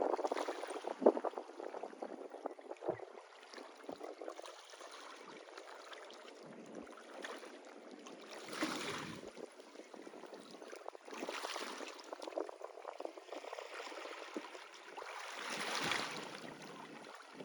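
Low, even outdoor noise of water and wind at a canal bank, swelling briefly about eight, eleven and sixteen seconds in, with a few soft knocks in the first few seconds.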